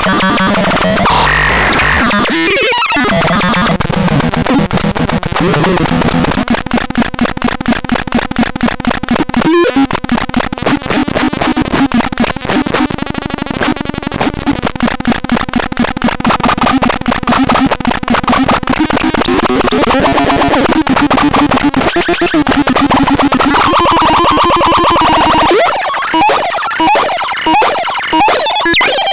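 VEVERKA RODÍ synthesizer making harsh, noisy electronic tones with a fast buzzing pulse, its pitches wandering and gliding. Near the end the sound turns choppy and stuttering.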